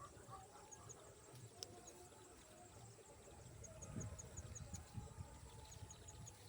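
Faint outdoor ambience: short runs of quick, high chirps repeating every second or two over a low rumble, with a soft thump about four seconds in.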